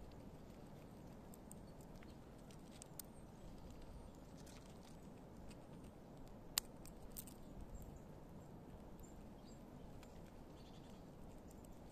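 Squirrel gnawing and cracking nut shells: faint scattered clicks and crunches, with one sharper crack a little past the middle, over low steady background noise.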